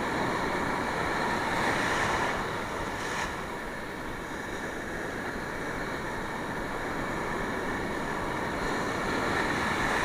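Sea surf washing in steadily, swelling a little about two seconds in and again near the end, with wind on the microphone.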